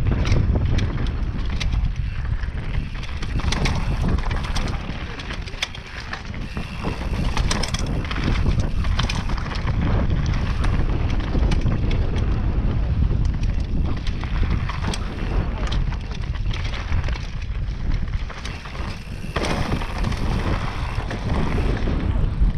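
Wind buffeting the microphone of a Scott Gambler downhill mountain bike riding down a dirt flow trail, with a steady rumble of tyres on dirt and gravel and frequent clicks and rattles from the bike. The noise eases briefly twice.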